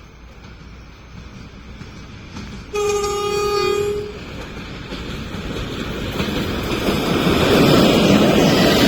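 Electric locomotive horn sounding one steady note for about a second, nearly three seconds in, followed by the rumble of the approaching freight train growing steadily louder.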